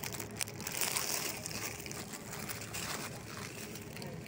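Plastic wrapping on bagged vegetables rustling and crinkling as they are handled, with a few sharp crackles near the start, over a steady low background hum.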